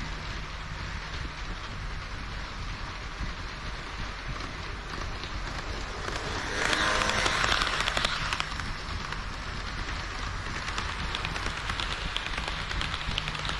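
HO-scale model train of KiHa 40 and KiHa 58 diesel railcar models running on the layout track, a steady rattling rush of small wheels and motor, louder for about two seconds around the middle.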